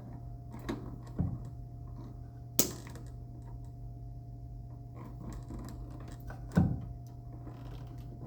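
Wire strippers working on copper house wiring: four or so sharp clicks and snaps as insulation is cut and pulled off the wire ends, the sharpest about two and a half seconds in. A steady low hum runs underneath.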